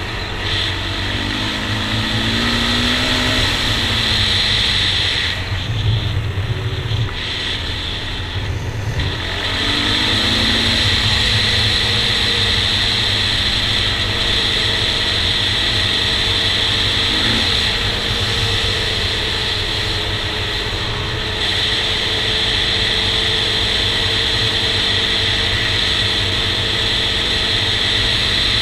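Honda TRX400EX quad's single-cylinder four-stroke engine running under way, heard from the rider's helmet with wind noise. The engine note rises and falls a couple of times in the first dozen seconds as the throttle changes, then holds steady.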